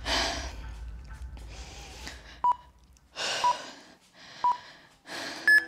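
Workout interval timer counting down: three short beeps a second apart, then a higher beep marking the start of the next work interval. Between the beeps come loud, breathy exhales from a person recovering between sets.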